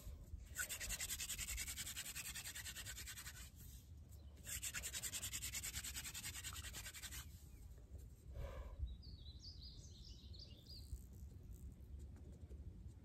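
Rapid back-and-forth scraping on a wooden arrow shaft, in two spells of about three seconds each with a short pause between. After that, a bird chirps in a quick run of high notes.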